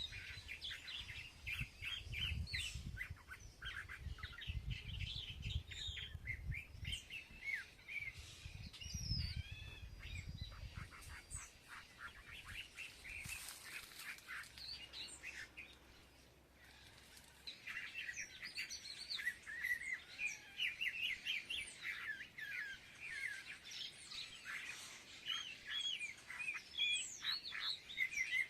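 Many birds chirping and twittering at once in a dense chatter, thinning out briefly a little past halfway. A low rumble sits under the first ten seconds or so.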